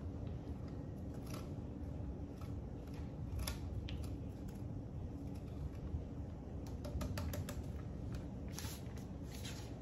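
Cheddar being scraped over a cone-shaped stainless steel grater in short, irregular strokes, with a cluster of clicks near the end as the grater is lifted off the cutting board. Heavy rain runs as a steady low rush behind it.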